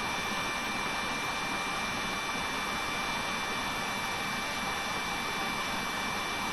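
Steady background hiss and hum of the room and recording microphone, with a faint steady high whine and no other events.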